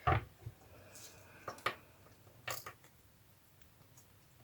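Paper and card being handled on a tabletop: a rustle as a piece is set down, then a few light taps and crinkles, fading to quiet near the end.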